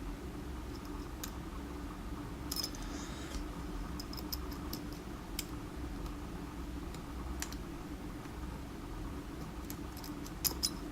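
Faint, irregular clicks and light scratching of a lock pick probing the pin stacks inside a DOM iX10 KG pin-tumbler cylinder, with a few sharper clicks spread through, under a steady low hum.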